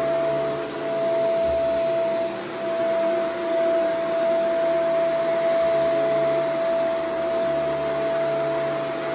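Shark Vertex AZ2002 upright vacuum running on carpet: a steady motor whine over the rush of suction and brushroll, with small dips in level as the head is worked back and forth.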